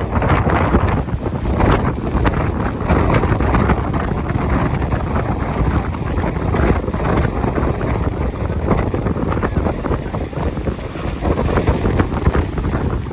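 Sea waves with heavy wind buffeting the microphone: a loud, dense noise, heaviest in the low end, that swells and eases without pause.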